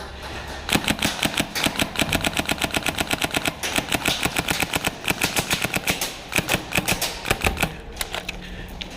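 Airsoft guns firing in long, rapid strings of sharp shots, with a few brief pauses between strings.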